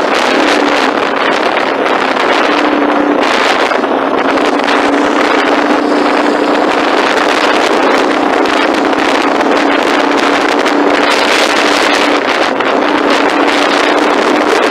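Loud, steady engine-like drone with a constant low hum, holding the same pitch throughout.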